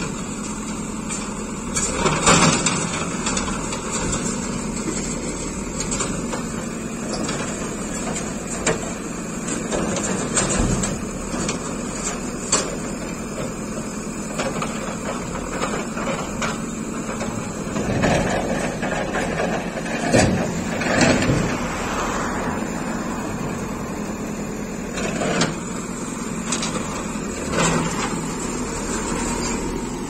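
JCB 4CX backhoe loader's diesel engine running steadily while it loads a steel tipper truck. Several loud crashing clatters break in as rock and earth are dumped from the backhoe bucket into the truck's bed.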